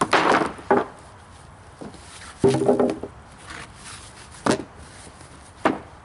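Rough-sawn wooden boards set down on a lumber stack, knocking against the boards beneath: a few separate knocks, with a longer clatter about two and a half seconds in.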